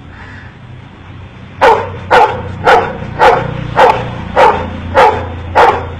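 Golden retriever barking a steady series of single barks, about two a second, starting about a second and a half in: the dog counting by barking on cue.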